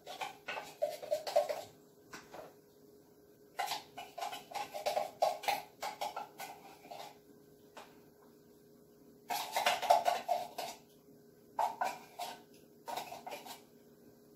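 Kitchen clatter in irregular bursts: rapid knocks and scrapes of hands and a utensil against metal cans and a plastic tub of fruit, with short pauses between.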